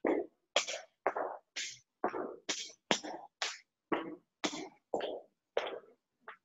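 Footsteps climbing a stone staircase and crossing the landing at a steady walking pace, about two steps a second. Each step is a short scuffing thud, and the sound cuts to dead silence between steps.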